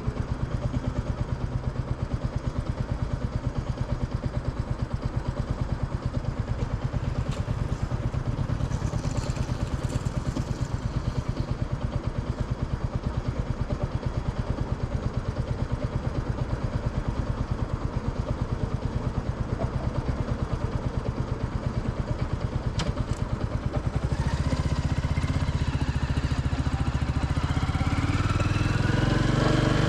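Royal Enfield Classic 350's single-cylinder engine running at a steady, even beat at low revs, then opening up about three-quarters of the way through, louder and with its pitch rising as the motorcycle accelerates.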